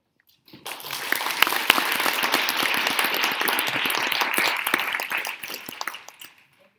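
Audience applauding. It starts about half a second in, holds steady, and dies away near the end.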